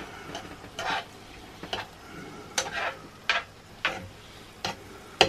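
Metal teaspoon scraping and clinking as chipotle paste is scooped from a small glass jar and stirred into a frying pan: irregular sharp clicks about every half second to second, over a faint sizzle of food frying in the pan.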